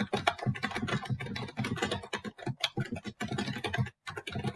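Typing on a computer keyboard: a quick, steady run of keystrokes with a brief pause about four seconds in, then more typing.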